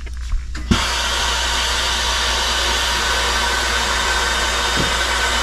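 Tesla Cybertruck's air suspension working as the truck changes ride height: a steady, even hiss that starts abruptly with a click under a second in.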